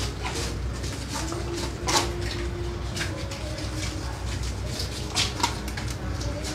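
A knife cutting and scraping at a pirarucu's (arapaima's) tough scaly skin, with a few short, sharp scrapes, over a steady low hum.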